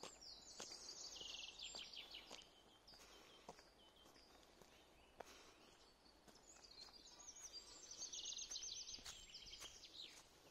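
A songbird singing two quick, descending phrases of rapid repeated notes, each about two to three seconds long: one at the start and another about six and a half seconds in.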